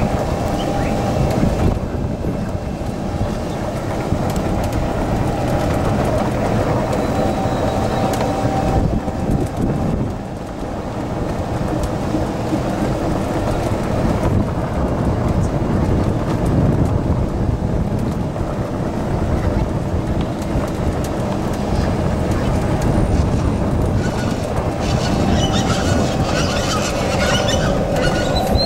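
Golf cart driving along a paved path: a steady running and rattling noise with a faint steady whine. Higher chirp-like sounds join near the end.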